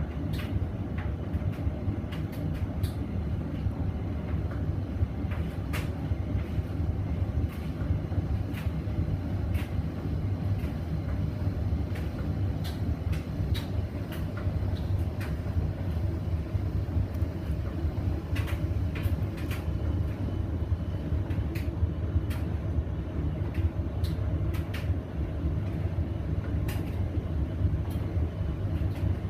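Hoover VisionDynamic washing machine running a blanket load: a steady low rumble from the drum, with frequent light clicks and knocks scattered through it.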